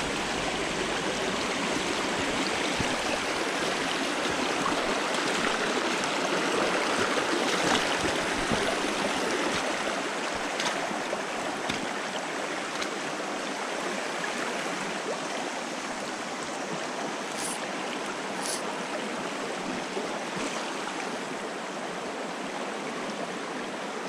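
Shallow mountain stream running over rocks in riffles and small cascades: a steady rush of water, a little louder in the first half.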